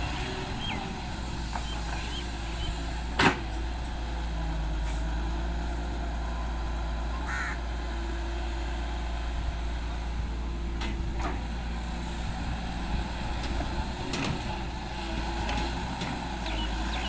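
Volvo EW145B wheeled excavator's diesel engine running steadily under hydraulic load as the arm digs and swings, its pitch shifting slightly with the work. A single sharp knock sounds about three seconds in, with a few fainter clicks later.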